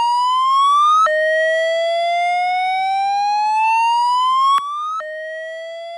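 School fire alarm siren, a slow rising wail that climbs for a few seconds, drops back sharply and starts over, twice. A sharp click comes about four and a half seconds in, and the siren is quieter after it.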